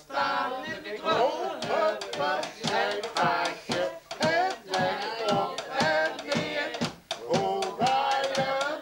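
A group of people singing a Sinterklaas song together in Dutch, with hand clapping keeping a steady beat of about two claps a second.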